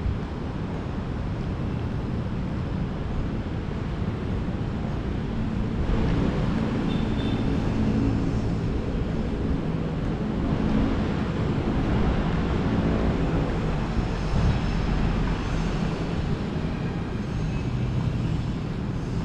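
Steady hum of city road traffic, with engine drone strongest in the low end and swelling a little about six seconds in.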